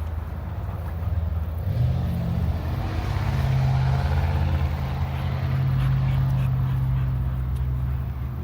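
An engine running steadily, its pitch rising a little about two seconds in and then holding.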